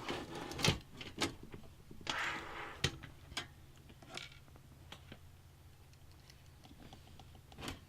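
Light clicks and knocks of computer parts being handled and fitted into a PC case, with a short scraping rustle about two seconds in, over a low steady hum.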